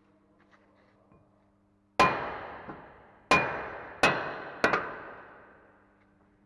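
Four hammer blows on a cast-iron brake disc to knock it off the hub, the last three coming quicker and quicker. Each blow leaves a metallic ring that dies away over about a second.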